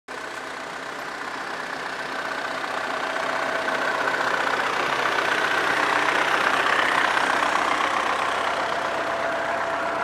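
Tractor-driven forage harvester running while chopped corn silage is blown into a trailer: a steady engine hum under a rushing hiss. It grows louder over the first seven seconds or so.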